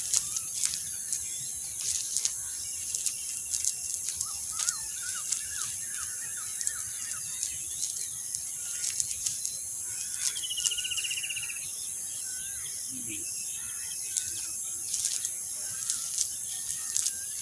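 Outdoor countryside ambience: small birds chirping in short, scattered calls over a steady high-pitched insect drone, with one quick trill about ten seconds in.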